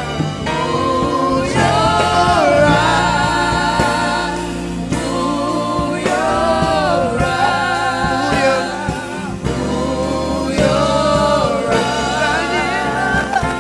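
Gospel worship song performed live: two male lead singers with a small backing choir, accompanied by keyboard and drums.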